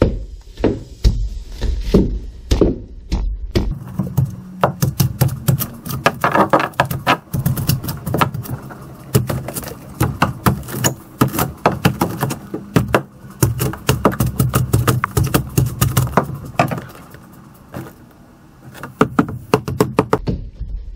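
A hand tool chopping and scraping out the rigid expanding foam packed under a boat's dash, in quick repeated strokes with chunks of foam breaking off. The strokes pause briefly near the end, then start again.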